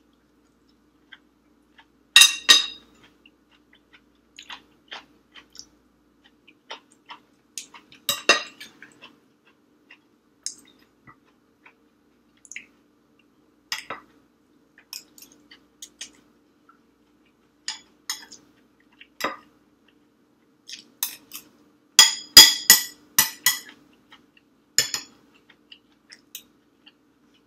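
A metal spoon clinking and scraping against a glass rice bowl, with the occasional tap of utensils on glass plates. The clinks are sharp and scattered, with a quick run of them late on.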